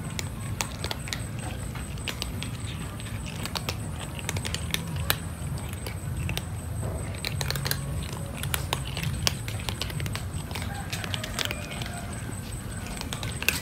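Several cats crunching dry kibble: many irregular, sharp crunches over a steady low rumble.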